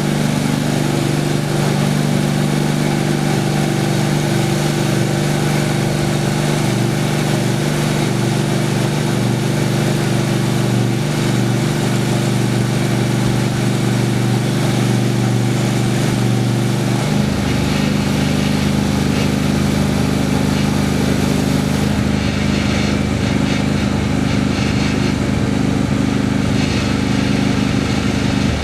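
Homemade sawmill's engine running steadily while milling cherry wood; about two-thirds of the way through, its pitch drops and a deeper rumble comes in.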